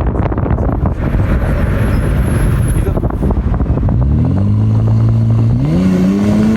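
Hyundai Azera V6 with an aftermarket exhaust diffuser: a rough, low exhaust rumble, then about four seconds in the engine note climbs in pitch in steps as the car accelerates hard.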